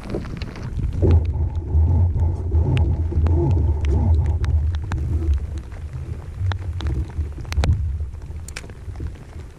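Low rumble of wind buffeting the microphone, strongest for the first few seconds and easing later, with scattered sharp ticks of raindrops hitting the camera.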